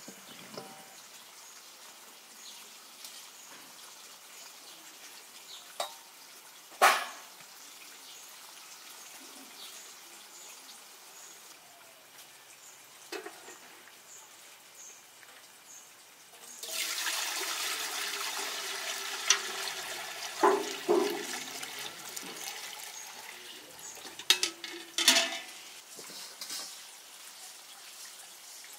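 Water running and splashing for about nine seconds, starting a little past halfway. A few sharp knocks come before and near the end of it.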